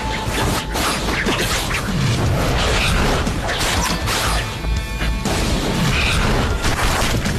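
Dramatic film-score music layered with loud crashing and striking sound effects of a fantasy battle.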